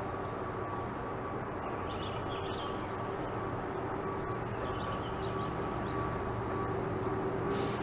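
A steady mechanical drone holding a constant pitch, with a few faint, short, high chirps over it.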